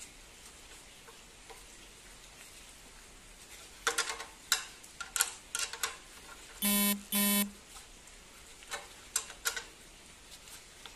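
Sharp plastic clicks and knocks from a tiller's handlebar control-lever housing being handled and fitted. About halfway through come two short, identical buzzing beeps, half a second apart, louder than the clicks.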